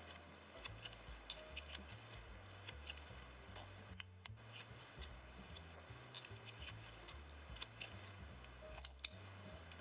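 Very faint, scattered small ticks and clicks from fingers working cotton thread and a plastic tatting shuttle while tying double stitches, over a faint low hum.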